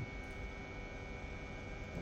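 Steady high-pitched whine over a low hum, unchanging, from a running machine.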